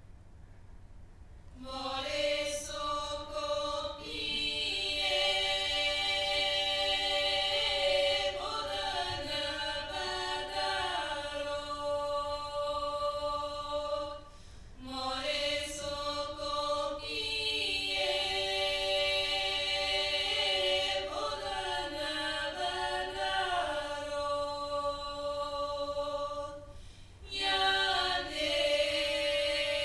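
Choir singing without instruments: long held low notes under a slowly moving melody, in three phrases with short breaks about 14 and 27 seconds in.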